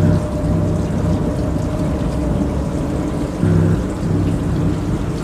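Experimental electronic noise music: a dense, rain-like hiss and rumble, with low pitched swells near the start and again about three and a half seconds in.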